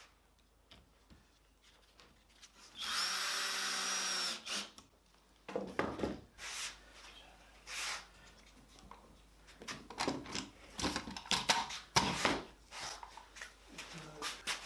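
A power drill runs steadily for about a second and a half, followed by scattered knocks and clatter of tools and wood being handled on the bench.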